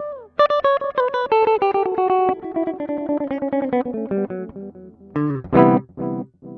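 Electric guitar played through a Moody Sounds Mushroom Echo pedal: a run of notes stepping down in pitch, each smeared into fast echo repeats. About five seconds in, a loud note sounds and its echoes repeat about twice a second, fading away.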